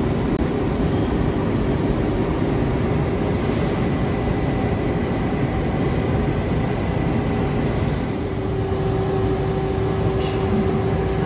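Newag Griffin electric locomotive standing at the platform, its blowers and electrical equipment running with a steady hum and a few steady whining tones; the lowest whine grows stronger about eight seconds in.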